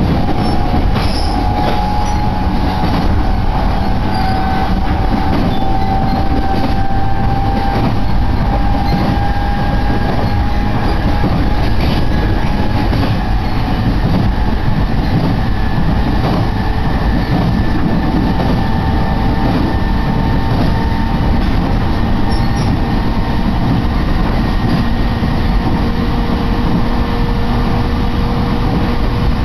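Electric passenger train running at speed, heard from inside the car: a steady rumble of wheels on the rails, with faint whining tones that slowly rise and fall in pitch.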